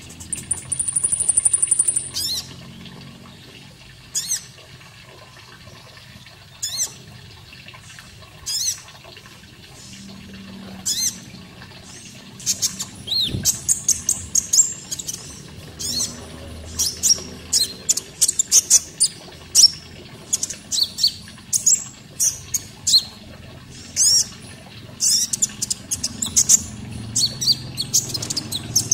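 Konin songbird chirping: a high trill for about the first two seconds, then sharp, short, high calls, a few seconds apart at first and coming in quick runs from about halfway through. Faint running water underneath.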